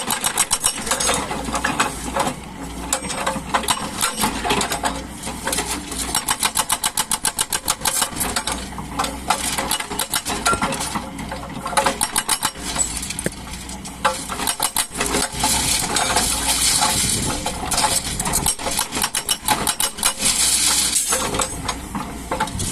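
Doosan DX140 excavator working: the engine runs under a fast, uneven clatter of clicks and rattles, with short hissy swells twice in the second half.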